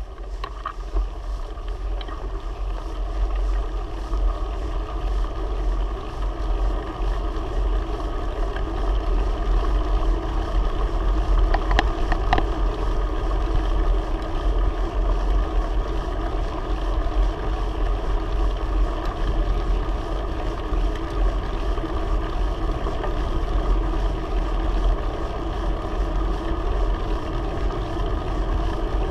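Wind buffeting a GoPro Hero 3's microphone while riding a bicycle, a steady low rumble and rush with a few faint clicks about twelve seconds in.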